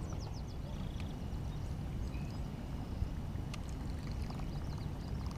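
Open-air ambience on a small fishing boat: a steady low rumble of wind and water around the hull, with faint high bird chirps now and then.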